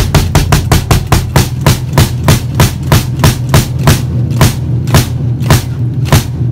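Bass drum struck hard by a kick pedal fitted with a LOUDSTEP Magnet footboard attachment, in fast repeated strokes of about six a second. After about four seconds the strokes slow to about three a second, then stop shortly before the end.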